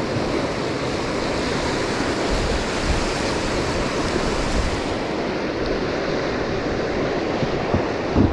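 Fast river water rushing and breaking into whitewater around a small inflatable raft, a steady churning of a river running high with spring runoff.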